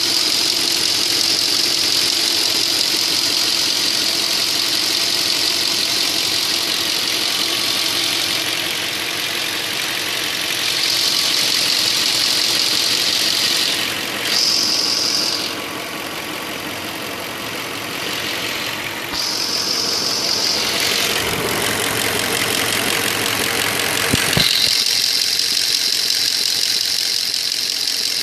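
Audi A8 quattro 3.7 V8 engine idling hot, with a steady knock coming from the engine. The owner reports that the knock appears when the automatic selector is in D or R, goes away once driving, and leaves no fault codes. The tone of the running engine shifts several times, most sharply about 24 seconds in.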